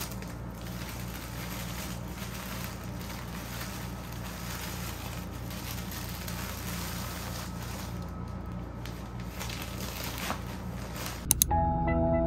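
Plastic mailer bag and tissue paper rustling and crinkling as a wrapped package is pushed into the bag, over a steady low hum. Near the end two sharp clicks, then gentle ambient music with held notes begins.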